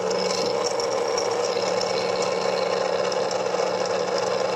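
A 12-volt DC charger cooling fan running on 12 V with a loud, steady mechanical buzz and rattle. It is a fault noise, which the repairer puts down to a loose stator coil inside the fan.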